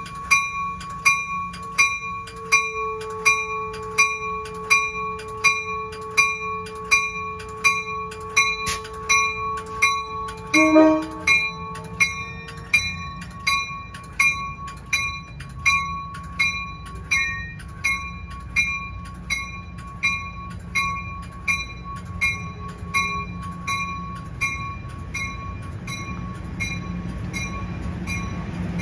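A railroad bell rings steadily, about three strokes every two seconds, beside a stopped Amtrak Pacific Surfliner. The train's low rumble grows near the end as it starts to pull out.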